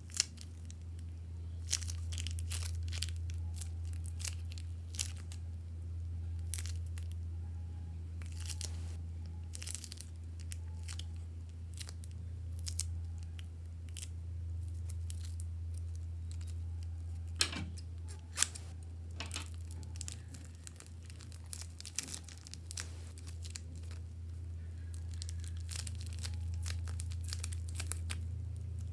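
Plastic mini piping bags crinkling and crackling in the hands as soft clay is squeezed out of them, with a denser run of crackles near the end as the emptied bags are handled. A steady low hum lies underneath.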